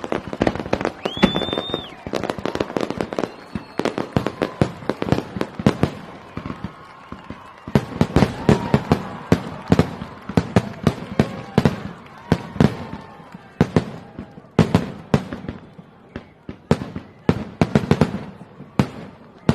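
Fireworks going off: dense, irregular volleys of sharp bangs and crackling pops, with a brief high whistle about a second in. Voices of onlookers can be heard beneath.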